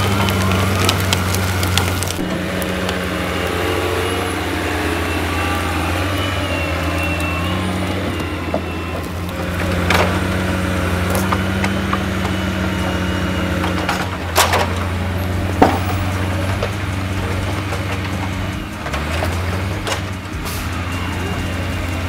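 Diesel engine of a forestry log-handling machine running steadily as its hydraulic crane grapple works a load of logs, with a few sharp wooden knocks of logs striking each other, the loudest about fifteen seconds in.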